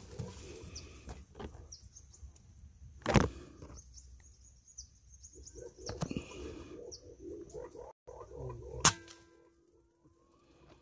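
Birds chirping in short high calls, with sharp cracks about three and six seconds in. The loudest crack comes near the end and is followed by a faint ringing; it is a shot from a scoped air rifle.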